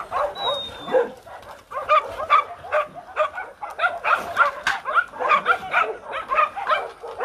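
Several dogs barking and yipping in a rapid, overlapping run of short calls, the noise of dogs playing.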